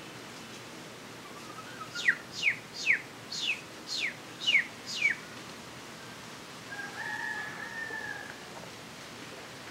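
A bird calls seven quick whistles, evenly spaced about half a second apart, each sliding steeply down in pitch. A little later a chicken gives one drawn-out call lasting about a second and a half.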